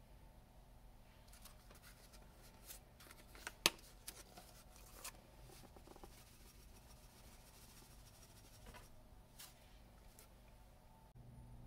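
Plastic shaker of ground black pepper handled and shaken over a stainless steel pot of water: faint scratchy taps and rustles, with one sharp click a little over three and a half seconds in.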